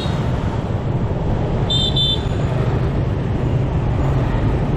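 Busy street traffic: a steady low rumble of engines and road noise, with a short high-pitched vehicle horn honking twice about two seconds in.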